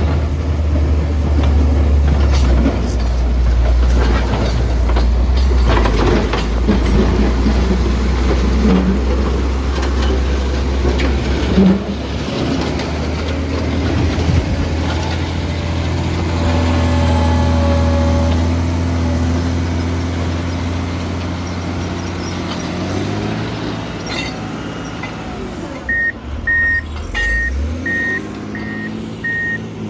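John Deere motor grader's diesel engine running steadily, then dropping in speed near the end as a reversing alarm starts beeping about twice a second.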